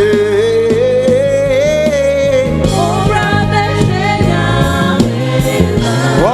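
Live gospel praise music: voices singing with a band playing sustained keyboard chords and bass, one voice holding a long note that rises slightly in the first couple of seconds.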